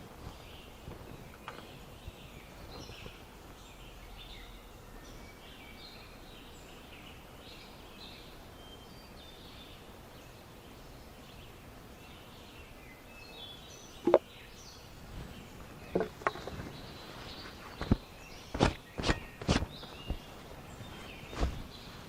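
Birds chirping over a steady outdoor background, then a run of sharp knocks and clicks in the second half, the first and loudest about two thirds of the way through.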